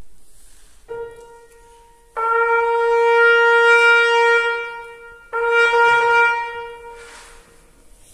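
A single piano note is struck and fades. Then a trumpet plays the same pitch as a long held tone, twice, with a short break between: the trumpet tuning to the piano.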